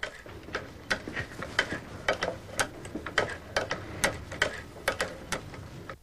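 Cobbler's leather-sewing machine running, its cam-driven mechanism clicking about two or three times a second, a little unevenly, over a low mechanical rumble.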